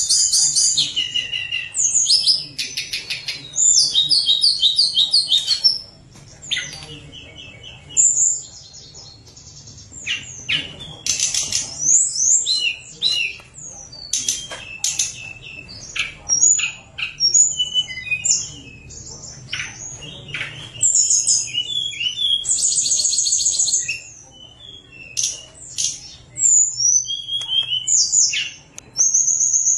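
Caged tledekan gunung singing a long, varied song of high whistled sweeps and rapid chattering trills, phrase after phrase with brief pauses.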